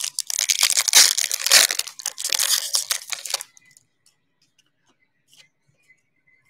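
Foil-wrapped basketball trading-card pack being torn open and its wrapper crinkled by hand: a dense, crackly rustle that stops about three and a half seconds in.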